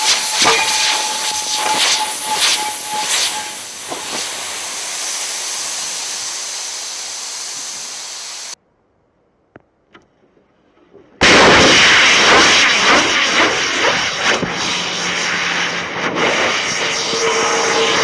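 Compressed-air breathing-apparatus cylinders venting through broken-off valves: a loud rushing blast of escaping air with a thin whistle in it. The first blast fades slowly and is cut off abruptly about 8.5 s in. After a short silence with a couple of faint clicks, a second cylinder's valve breaks off about 11 s in and another loud blast starts suddenly, the unrestricted discharge driving the cylinder about.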